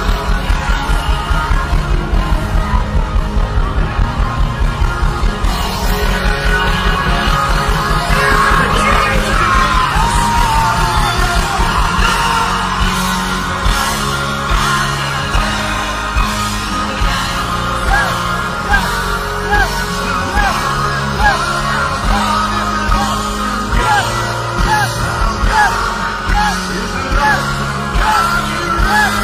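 Loud live rock-style worship music with voices singing and yelling. It starts with a fast pounding beat, about four a second, that gives way after several seconds to a steadier bass line.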